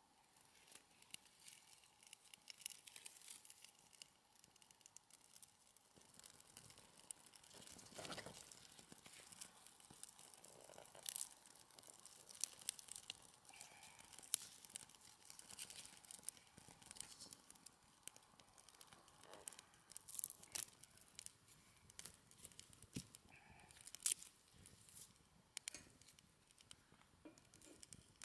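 Small wood fire in a folding metal camp stove crackling and popping as it catches, with irregular sharp snaps and rustling as kindling is fed in by hand.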